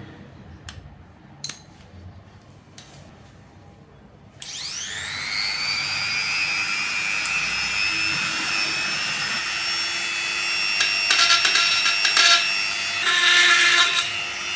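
A few handling clicks, then about four seconds in a high-speed mini grinder motor spins up with a rising whine and runs steadily. Near the end the bit bites into the steel plate with a rough, uneven cutting noise, and the sound grows louder.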